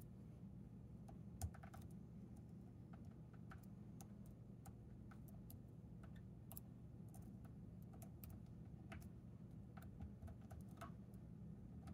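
Faint, irregular small metallic clicks of a hook pick working the pin stacks of a Chicago Lock Co tubular lock under tension, one sharper click about a second and a half in, over a low steady hum.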